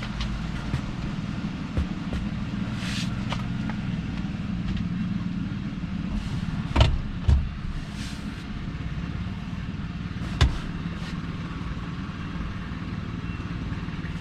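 A steady low hum, with sharp clicks and knocks of plastic dash parts being handled: a pair close together about seven seconds in and another about ten seconds in.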